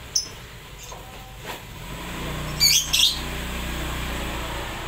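Caged lovebird giving short, sharp, high chirps: a faint one or two early, then a loud pair about halfway through. A low hum sits underneath through the middle.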